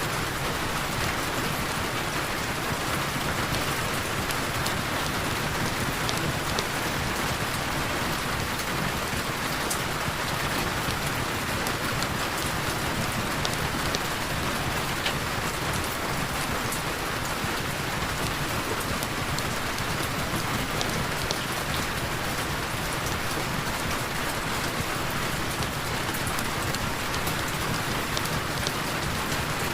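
Heavy rain falling steadily, a dense even hiss with scattered small sharp ticks of drops.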